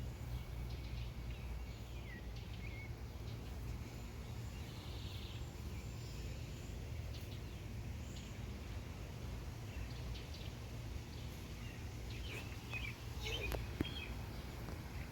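Outdoor garden ambience: a steady low rumble with faint, scattered bird chirps, and a short cluster of chirps and clicks near the end.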